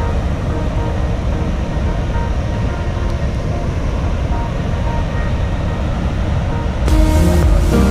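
Steady low roar of a large waterfall in full monsoon flow, water pounding heavily. About seven seconds in, background music starts over it.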